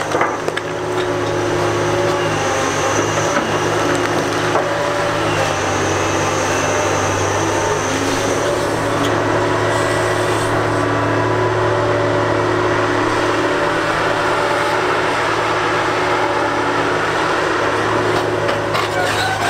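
Heavy diesel earthmoving machinery working broken rock: a steady engine hum under a continuous rough grinding and scraping of rock.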